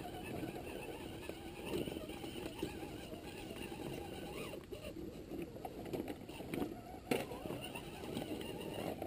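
1:10-scale RC rock crawler's electric motor and geared drivetrain running as it climbs over loose rocks, with a sharp knock about seven seconds in.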